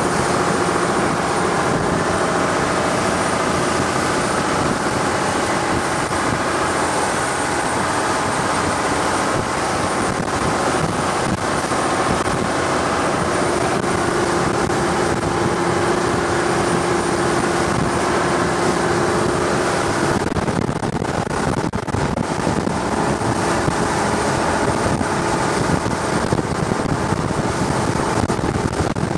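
Longtail boat's inboard engine running steadily under way, a loud continuous drone mixed with the rush of air and water. Its tone shifts slightly about twenty seconds in.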